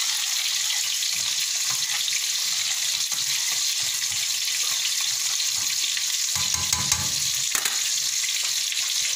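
Two whole tilapia frying in hot oil in a pan, a steady sizzle, while a ladle stirs a pot of corn soup beside it, with a brief low knock about seven seconds in.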